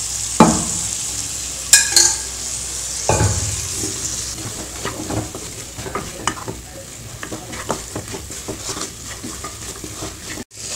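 Wooden spatula stirring and scraping boiled mutton pieces through frying masala in a nonstick pan, over a steady sizzle. Three louder scrapes or knocks come in the first three seconds, then quicker, lighter strokes.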